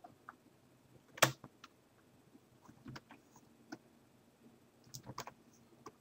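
Scattered computer keyboard keystrokes and mouse clicks, with one louder tap about a second in and a quick run of clicks near the end.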